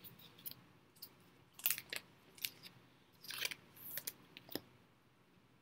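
Faint handling of trading cards and plastic card sleeves: a scattering of short rustles and clicks, spaced about half a second to a second apart.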